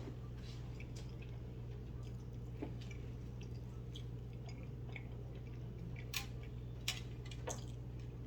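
Quiet eating sounds: chewing and small wet mouth clicks, with three sharper clicks near the end, over a steady low hum.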